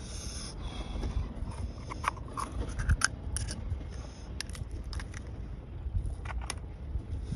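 A knife prying open and scraping an oyster shell while it is shucked: scattered sharp clicks and scrapes of blade on shell, over a steady low rumble.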